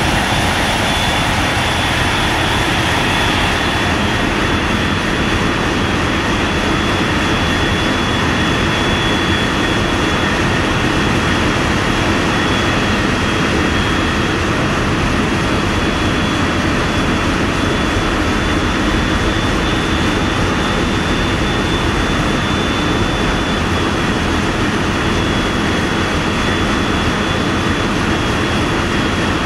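Ship's engines running steadily, heard aboard: a loud, even drone with a thin high whine held over it.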